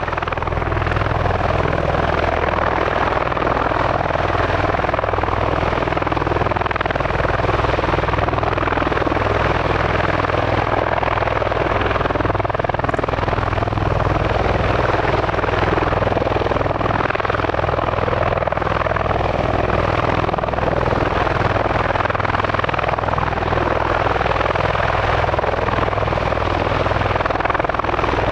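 Bell Boeing V-22 Osprey tiltrotor running, its proprotors and Rolls-Royce T406 turboshaft engines giving a loud, steady deep rotor drone with a broad turbine rush over it.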